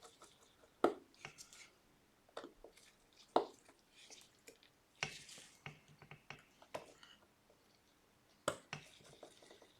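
Light clicks and taps of small repair tools on the parts inside an opened iPhone 12, a few scattered sharp ticks with pauses between them.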